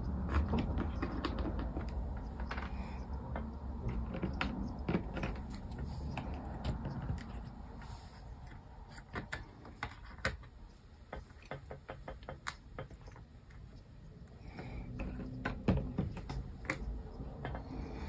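Cardboard jigsaw puzzle pieces being handled and set down on a table: scattered light clicks and taps over a low steady hum.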